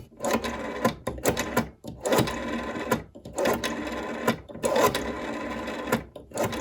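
Rotary telephone dial being dialed: several spins in a row, each a sharp click as the finger wheel is pulled round, then a whirring, clicking run of about a second as it springs back and sends the pulses of one digit.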